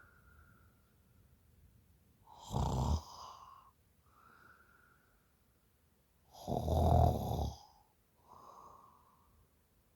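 A woman snoring in her sleep after drinking. There are two loud snores about four seconds apart, each followed by a softer breath out.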